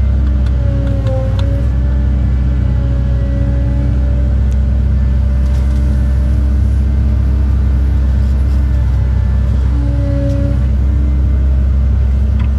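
Cat 309 excavator's diesel engine running steadily under load, heard from inside the cab, with a hydraulic whine that swells briefly about half a second in and again about ten seconds in as the boom and bucket are worked.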